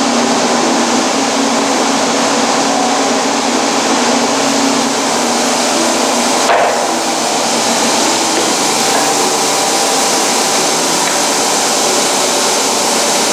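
A steady, loud rushing noise, like an air blower or shop machine running, with a brief bump about six and a half seconds in.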